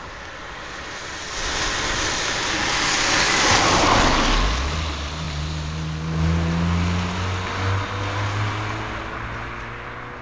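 A car drives past close to the road surface. Tyre and road noise builds to a peak about four seconds in, then the engine note rises steadily in pitch and fades as it pulls away.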